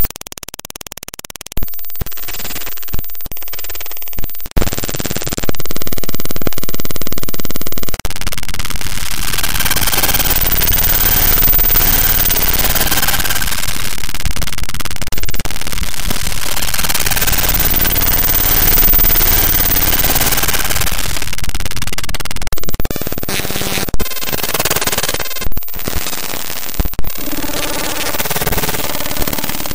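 Computer glitch sound effect: harsh digital noise and buzzing chopped into abrupt, stuttering segments. A steady buzzing tone sounds for a few seconds about five seconds in, a long dense stretch of static-like noise fills the middle, and choppy clicks and sudden cut-outs come near the end.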